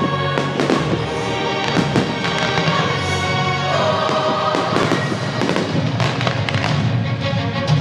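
Aerial firework shells bursting, with repeated sharp bangs and crackles, mixed with continuous loud music.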